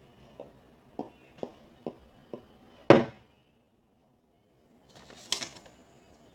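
Small objects being handled: a run of light taps and clicks about every half second, then one loud thump about three seconds in. After a second and a half of dead silence, a short rustle.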